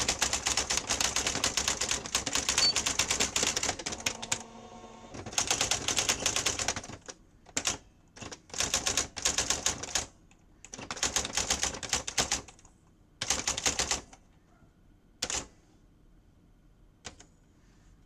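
Sears 10k40 daisy wheel typewriter printing: fast rattling runs of daisy wheel strikes, broken about four seconds in by a short mechanical whir, then shorter bursts that thin out to a couple of single strikes near the end.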